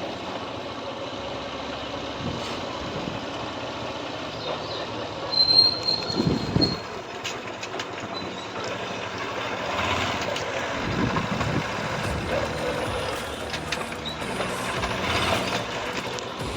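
Road vehicle and traffic noise: a steady rumble with scattered knocks, and a brief high squeal about five seconds in.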